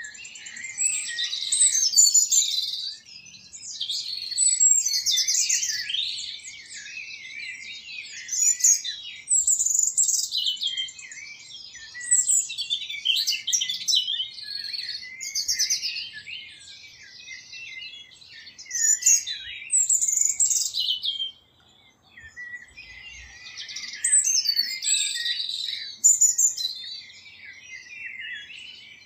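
A chorus of small birds chirping and twittering, high-pitched and overlapping, in waves every second or two. There is a brief lull a little past three quarters of the way through.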